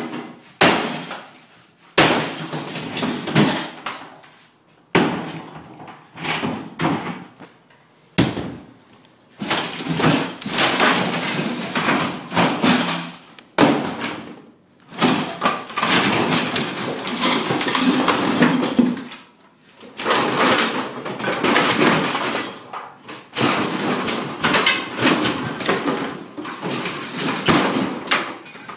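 Kitchen cabinets and countertop being smashed and pried apart: heavy single blows, then long runs of cracking, splintering and crashing as wood and laminate pieces are ripped loose and fall.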